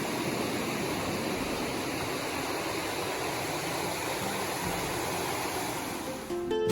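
Steady rush of water from a waterfall on the Tuckasegee River. Acoustic guitar music comes in near the end.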